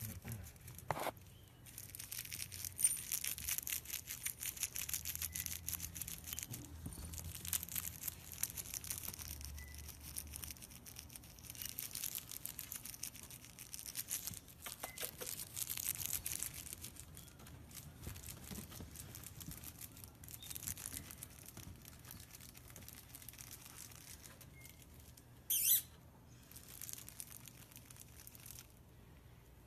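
Sphynx kittens chewing and tearing at raw meat: a patchy run of small wet clicks and crackles. One short, sharp, high sound comes near the end.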